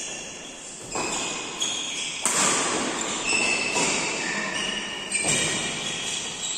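Doubles badminton rally: rackets smacking the shuttlecock back and forth, about once a second, while players' shoes squeak in short chirps on the court.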